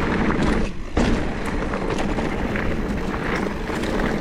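Mountain bike rolling along a dirt trail: tyre noise with small rattles and knocks from the bike over the ground, and wind on the microphone.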